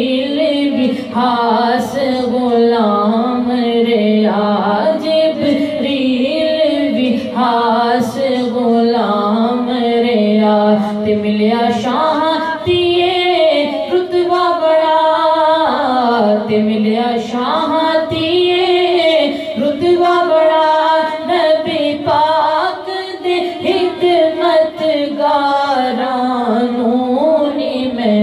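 A woman singing a Punjabi devotional kalam (naat) solo, her melody rising and falling through long held notes.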